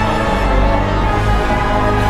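Background music with a spooky, Halloween feel, playing steadily over the build.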